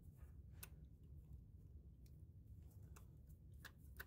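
Near silence with a few faint, sharp clicks as a screw and bit driver are worked into place on a purge valve.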